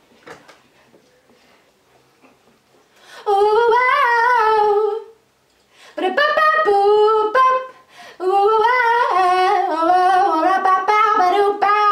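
A woman singing solo into a microphone: three sung phrases with wavering pitch, the first starting about three seconds in, with short quiet pauses between them and nothing playing along.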